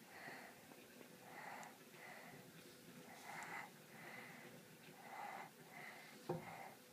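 Faint, wheezy snoring: breaths come about every one and a half to two seconds, each with a thin whistle. A soft knock is heard near the end.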